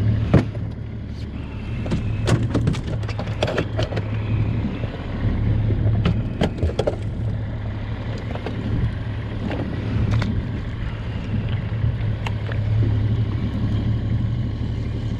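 Small boat's outboard motor running steadily with a low hum, with scattered knocks and clatter on the boat.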